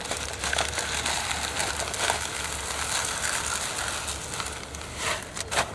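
4 mm fishery pellets poured from a bag into a plastic bait tub: a steady rattling hiss of hard pellets, with a few sharper crackles near the end.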